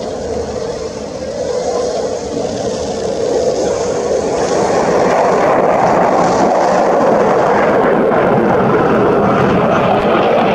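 Jet noise from two fighter jets in a pair display pass: a dense rushing sound that swells louder over the first five seconds and then holds steady.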